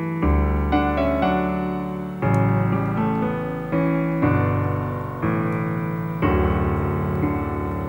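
Background piano music: a slow piece with a new bass note and chord struck about every two seconds, each fading before the next.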